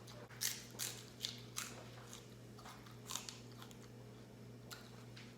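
Raw celery being bitten and chewed close to the microphone: crisp crunches about every half second at first, thinning out in the second half, over a faint steady low hum.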